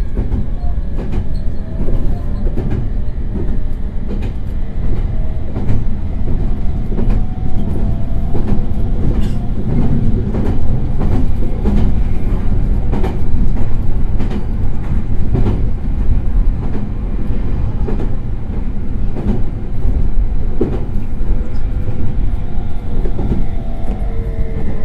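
Meitetsu 3100 series electric train running, heard from inside the car: a loud, steady rumble with frequent clicks of the wheels over rail joints, and a faint whine that falls in pitch near the end.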